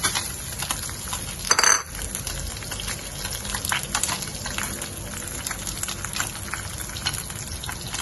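Fish bones and ginger frying in hot oil in a pot: a steady sizzle with scattered clicks of a spatula working against the pan. There is one louder metallic scrape about one and a half seconds in.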